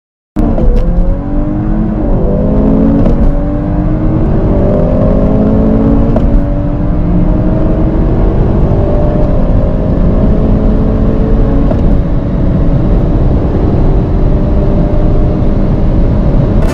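Turbocharged 2.0-litre four-cylinder engine at full throttle, accelerating from about 50 to 200 km/h. It cuts in suddenly about half a second in, drops in pitch at quick gear changes in the first few seconds, then climbs slowly and steadily under load.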